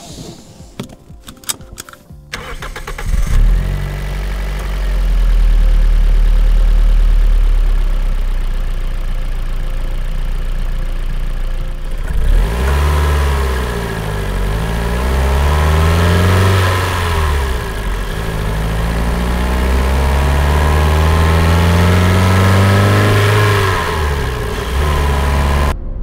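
Toyota Corolla Verso's 1.6-litre petrol four-cylinder engine: a few clicks, then it starts about two seconds in and idles steadily. From about twelve seconds it is revved in rising and falling sweeps, ending with a long climb in revs that falls back near the end.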